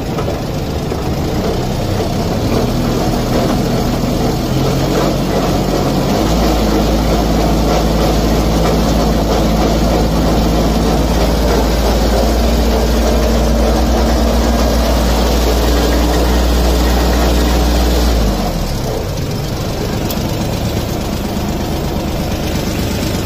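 Tractor diesel engine running steadily, its sound growing heavier and deeper about six seconds in and holding there, then its pitch sliding down near the end as it slows.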